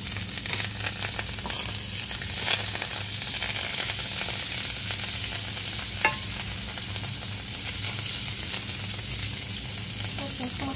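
Salmon fillets sizzling steadily in melted butter in a frying pan, with a fork moving among them and one sharp clink of metal on the pan about six seconds in.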